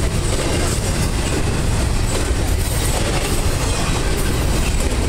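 Double-stack intermodal well cars of a freight train rolling steadily past: the continuous noise of steel wheels on the rails, with faint clicks as the wheels pass over joints.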